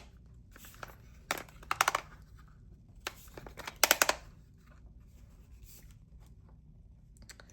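Handling noise from a plastic camping light being turned and adjusted: about four short bursts of rapid clicking and rustling in the first half, then only faint handling.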